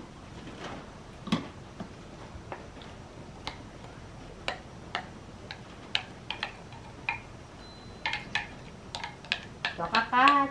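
Light, irregular taps and clicks of a wooden spoon knocking against a glass jar and a metal pot as ground meat is scraped out of the jar. The taps come thicker near the end.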